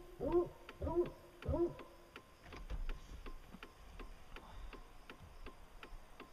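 A hound barking three times in quick succession in the first two seconds, each bark a short call that rises and falls in pitch, over a steady fast ticking of about three to four clicks a second.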